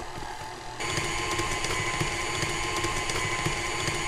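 KitchenAid stand mixer's motor running, its flat beater creaming butter and cream cheese in a glass bowl. It is a steady whir with a fine rhythmic churn, stepping up in level about a second in and then holding.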